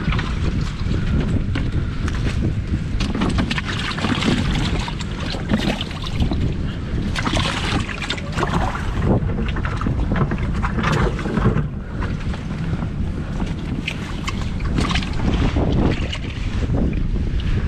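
Wind buffeting the microphone in a steady low rumble, with scattered short rustles and splashes as a plastic weigh-in bag is handled and fish are taken out of a boat's livewell.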